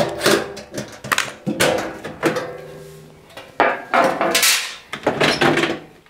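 Plastic back cover and lid of a washing machine being unscrewed and lifted off the cabinet: a string of knocks, rattles and scrapes of hard plastic panels.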